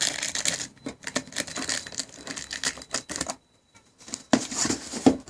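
Rapid crackling and rustling of a cardboard shipping box being opened by hand: tape, cardboard flaps and paper handled, with a short pause about three and a half seconds in, then a brighter rustle near the end.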